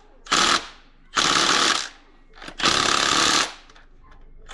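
Power impact wrench run in three short bursts, the last two longer, driving the engine mount's bolts home, each burst trailing off as the tool spins down.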